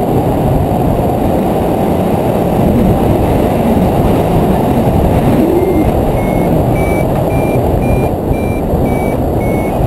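Steady rush of flight wind over the microphone on a tandem hang glider. About six seconds in, a flight variometer starts beeping: short high beeps about twice a second, edging up in pitch, the signal that the glider is climbing in lift.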